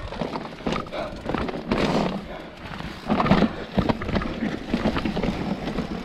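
Mountain bike clattering down a rough rocky descent: a rapid, uneven string of knocks and rattles as the tyres, frame and drivetrain hit rocks and drainage ditches.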